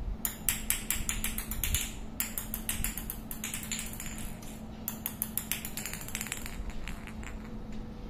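Irregular runs of quick, light clicks and taps on a hard marble floor as a small plastic ball is flicked about and a blue lovebird chases it. The clicks thin out after about six seconds. A faint steady hum runs underneath.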